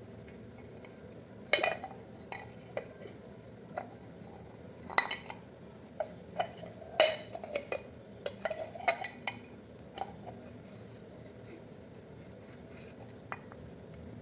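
Metal pieces clinking and knocking as they are handled, a scattered run of sharp clinks for most of the stretch with a single one again near the end.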